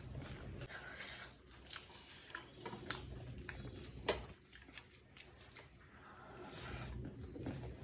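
Close-miked chewing of chicken biryani: wet, squishy mouth sounds with many small clicks, and a couple of sharper clicks about three and four seconds in.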